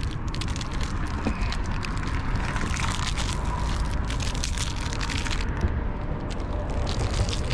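Clear plastic wrap crinkling and crackling in a run of short irregular crackles as hands handle and unwrap a wheel center cap, over a steady low rumble.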